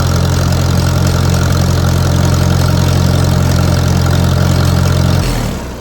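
Allis-Chalmers D17 tractor's carbureted engine idling steadily, running smoothly now that its fuel delivery from the tank is fixed. About five seconds in the engine note stops and winds down briefly, as the engine is shut off.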